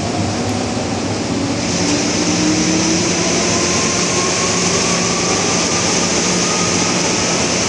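MTR M-Train electric multiple unit running, its traction motors whining in several tones that rise steadily in pitch as the train accelerates, over wheel and rail noise. A hiss swells about a second and a half in.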